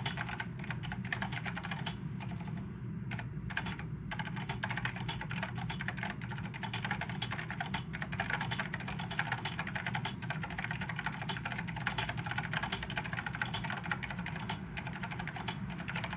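Continuous fast typing on a Monterey K7S keyboard with square-mount Mitsumi KCM Type II linear mechanical switches and double-shot caps: a dense, steady stream of keystroke clicks.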